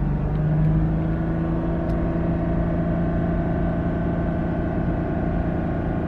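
BMW N52 inline-six engine held at a steady fast idle of about 3,000 rpm with the car standing still, heard from inside the cabin. The revs are held up to thin the oil and bleed it from the hydraulic lifters, a temporary fix for the N52's lifter tick.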